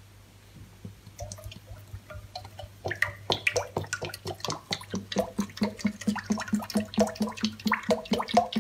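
Cooking oil poured in a thin stream from a bottle into a nonstick wok, making a quick run of small plops and splashes. It grows denser and louder from about three seconds in.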